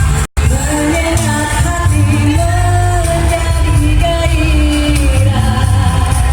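Pop-style song with a strong bass beat and a sung melody held in long notes. The sound drops out for a split second just after the start.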